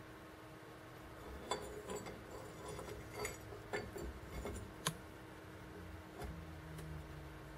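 Faint, scattered clicks and light metallic taps from a rusty steel mortar part being handled in a bench vise. They begin about a second and a half in.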